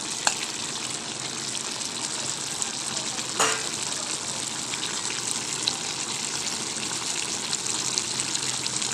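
Breadfruit simmering in coconut milk in a pan, a steady bubbling sizzle, with a spatula stirring and knocking against the pan about three seconds in.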